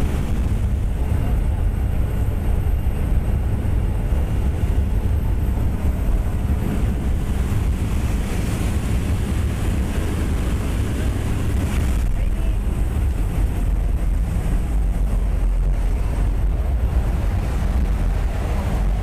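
Steady roar inside the cabin of a skydiving jump plane in flight: engine noise mixed with the rush of air through the open jump door, with wind buffeting the microphone.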